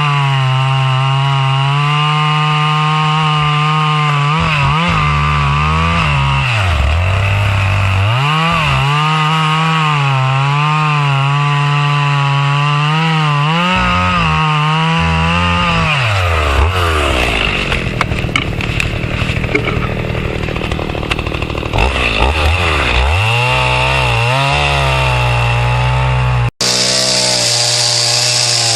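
Chainsaw running at high revs while cutting through a thick tree trunk. Its engine note sags and recovers several times as the chain loads up in the wood, and about two-thirds of the way through it drops deep and labours roughly for several seconds before picking back up. Near the end the sound breaks off for an instant and comes back at full speed.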